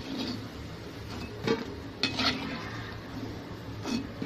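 Perforated metal spoon scraping and knocking against a kadai while lifting fried pakoras out of hot oil, over the steady sizzle of frying. A few sharp clinks stand out: about a second and a half in, twice around two seconds, and near the end.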